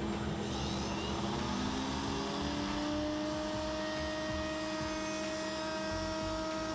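Table-mounted router spinning a 3/8-inch rabbeting bit, running at a steady whine with a cutting hiss as it routs a shallow rabbet along the inside edge of a wooden ring.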